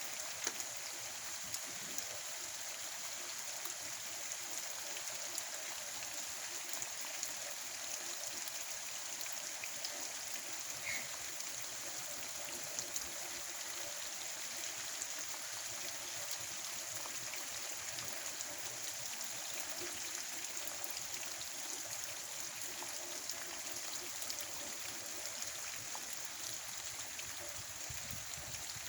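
Steady rain, an even hiss with many small drops ticking scattered through it.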